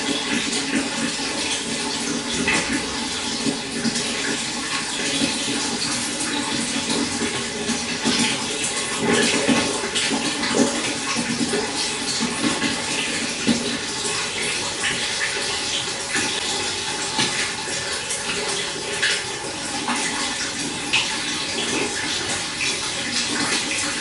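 Shallow stream running and babbling steadily over stones, with a lively stream of small splashes and gurgles.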